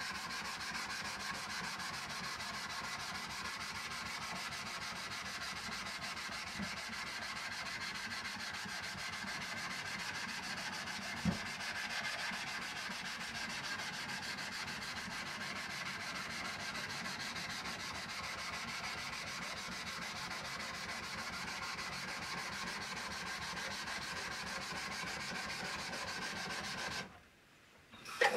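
Steel kanna (Japanese plane) blade being rubbed on a 1000-grit Naniwa Hibiki synthetic waterstone: continuous scraping of steel on wet stone, with one light knock about eleven seconds in. The rubbing stops about a second before the end.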